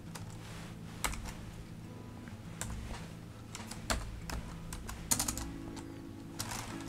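Computer keyboard keystrokes entering a contact into ladder-logic software: a few separate clicks about a second apart, then a quick run of keystrokes about five seconds in and another near the end, over faint background music.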